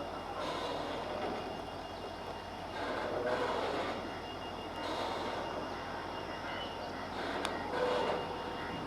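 Train noise at a distance: a low rumble that swells and fades every two to three seconds, with a faint squeal now and then.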